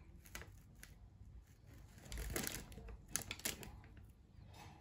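Soft handling noises from hands laying pastry strips in a lattice over an apple pie in a metal springform pan: light scattered taps and rustles, a little louder around the middle.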